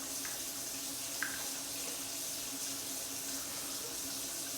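Water running steadily from a sink tap, with one small click about a second in.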